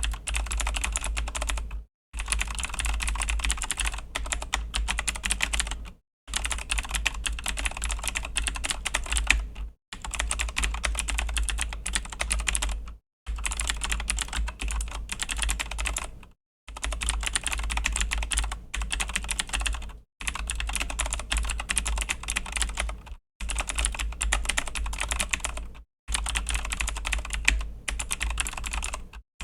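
Fast, continuous typing on a Razer BlackWidow V3 mechanical keyboard with clicky Razer Green switches: a dense patter of key clicks in runs of a few seconds, each broken by a brief silent gap.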